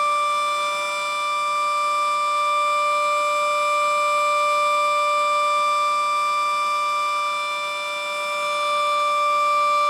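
Federal Signal Model 7B outdoor warning siren sounding a steady alert tone at one unchanging pitch, with the loudness dipping gently twice. This is the normal five-minute alert test signal.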